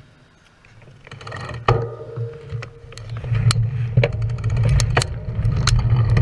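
Wind rushing over a handlebar-mounted camera as a bicycle picks up speed, a low rumble building from about a second in. Sharp rattles and clicks come from the bike jolting over the path throughout.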